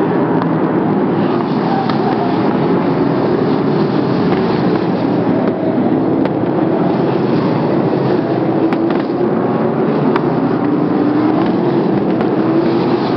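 Sprint car engines running at race speed: a loud, continuous engine drone whose pitch keeps rising and falling.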